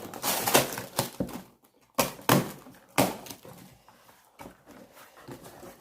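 A cardboard parcel being opened by hand, with rustling and scraping of cardboard and packing. The noise comes in a few short bursts, about a second apart, then fades to fainter handling.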